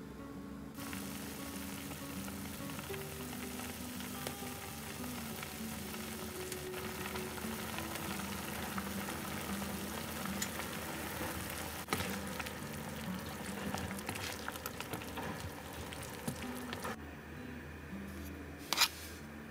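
Soy-sauce broth with cabbage, carrot and chicken boiling in a frying pan, a steady bubbling sizzle, with background music playing under it. The bubbling stops near the end, followed by a single sharp click.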